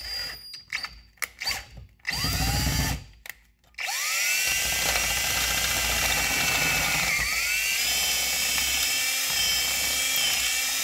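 Power drill with a twist bit drilling out a bolt hole in a small metal clamp held in a bench vise. A few short clicks, then a brief spin-up about two seconds in, then from about four seconds it runs steadily with a high whine, its pitch dipping briefly near seven seconds.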